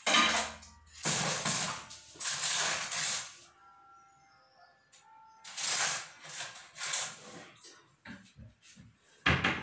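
Hot boiled potatoes being mashed by hand in a pot for gnocchi dough: a run of pressing and scraping strokes, each about a second long, with a few lighter clicks near the end.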